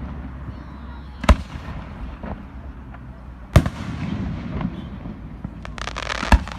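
Aerial firework shells bursting: three sharp bangs about two to three seconds apart, with a crackling shower just before the last bang.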